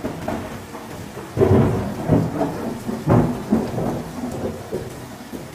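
Thunderstorm audio from a thunder overlay clip: several thunder cracks, about one and a half, two and three seconds in, each rolling off into rumble, over a steady hiss of rain. The cracks grow weaker and the rumble fades toward the end.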